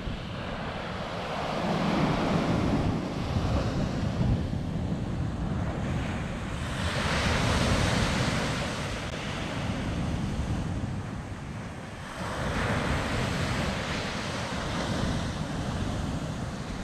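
Ocean surf on a sandy beach: three waves break and wash up the shore several seconds apart. Wind buffets the microphone with a steady low rumble throughout.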